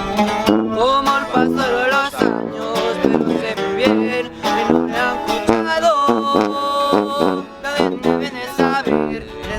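Background music led by plucked guitars, with a long held melodic note about six seconds in.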